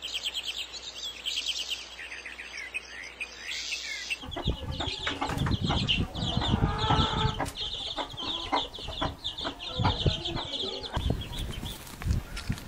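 Chickens clucking among rapid high chirping, with a run of knocks and thumps starting about four seconds in.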